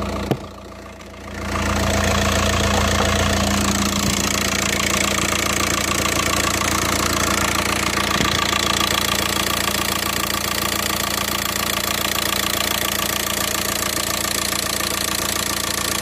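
VW Passat's 2.0 TDI pumpe-düse four-cylinder diesel engine idling steadily, cold, with its hood open, getting louder about a second and a half in. It runs without the 'shaka shaka' rattle it had before its oil pump conversion.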